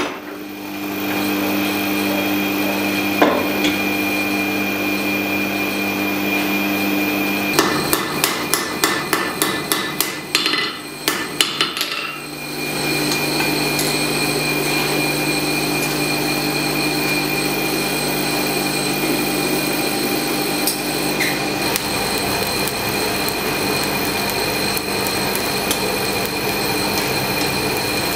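Blacksmith's forge shop: a steady machine hum, then about a dozen hammer blows on hot steel, two or three a second, each with a short ring. After that comes a steady rush with a high whine from the coal forge's air blast.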